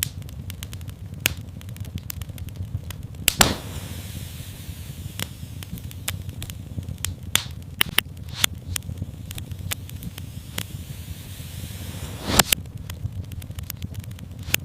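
Wood fire crackling, with many sharp pops and snaps over a steady low rumble of the flames. Two louder pops stand out, about three seconds in and near the end.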